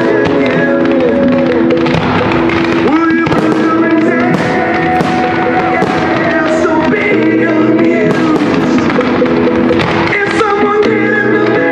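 Music playing loudly, with firework shells bursting over it in repeated sharp bangs and crackles.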